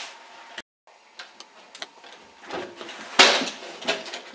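Scattered sharp clicks and knocks, the loudest about three seconds in, with a brief dropout to dead silence just under a second in.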